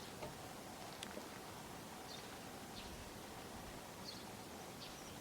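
Quiet outdoor ambience: a small bird giving short high chirps every second or so, over a faint steady hum.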